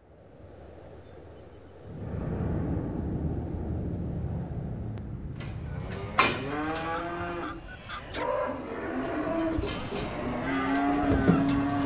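Cows mooing several times in the second half, the calls overlapping, the last one long and steady near the end, over a low steady rumble.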